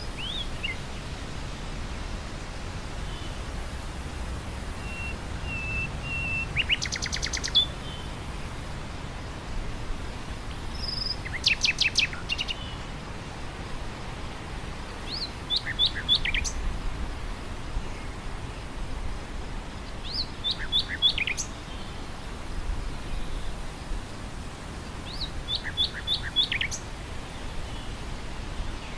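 Nightingale singing in short phrases of rapid repeated notes, five phrases a few seconds apart, over a steady rush of wind through grass.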